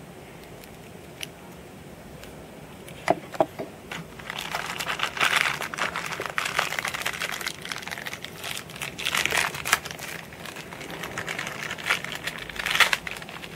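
Clear plastic packaging crinkling and rustling in repeated bursts as it is handled, after a couple of light plastic clicks about three seconds in.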